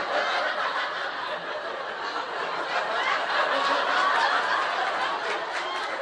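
A live audience laughing hard and at length, many voices at once in a hall.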